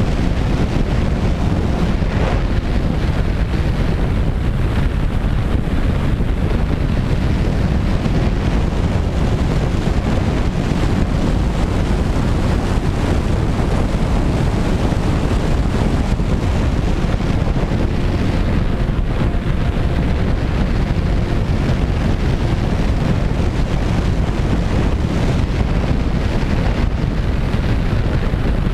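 Wind buffeting the microphone of a camera mounted on a flying radio-control Twin Otter model aircraft, a steady rushing noise heaviest in the low end, with a faint hum from its twin propellers underneath.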